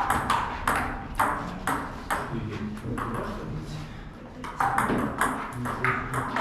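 Table tennis rally: the celluloid ball clicking off paddles and the table in a quick, even rhythm of about two to three hits a second. Play pauses in the middle for a couple of seconds, then a new rally starts near the end.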